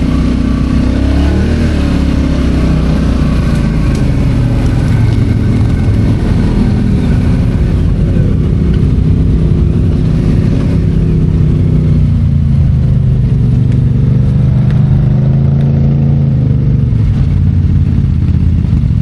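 ATV engine running steadily while riding, with small rises and dips in pitch as the throttle changes.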